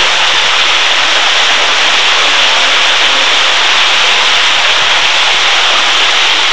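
A loud, steady hiss with no pitch or rhythm, cutting in and out abruptly.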